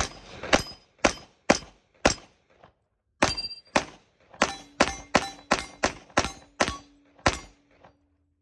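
About fifteen gunshots from an FN FNX-45 Tactical .45 ACP pistol, fired at about two a second with a pause of about a second after the fifth, quickening near the end. The pistol cycles through the whole string without a jam.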